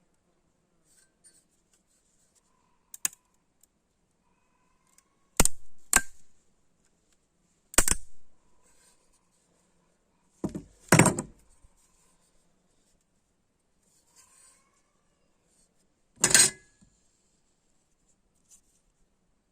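Tools and metal pieces being handled and set down: a handful of separate sharp clacks and knocks several seconds apart, the loudest about eleven and sixteen seconds in.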